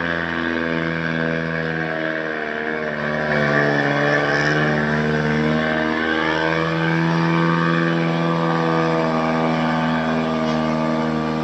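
Diesel truck engine pulling hard up a steep climb under heavy load, towing an overloaded pickup: a steady, labouring drone whose pitch shifts slightly a few seconds in and again around the middle.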